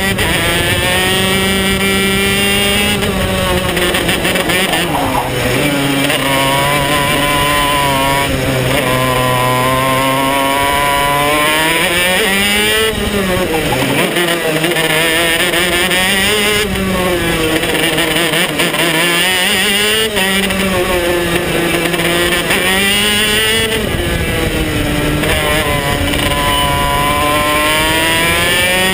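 KZ125 shifter kart's 125cc two-stroke single-cylinder engine running hard through a lap, heard from the driver's seat. Its pitch climbs and falls over and over, with sudden drops at gear changes and dips under braking into corners.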